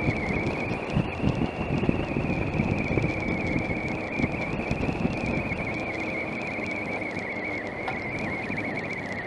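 Triumph Tiger 900's three-cylinder engine running as the motorcycle rides along a dusty dirt track, with wind and tyre noise on the gravel, under a steady high-pitched drone that wavers slightly in pitch.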